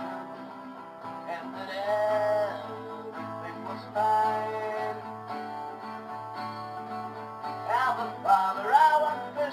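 Acoustic guitar strummed in steady chords under a man's singing voice, which slides between notes and holds one long note partway through.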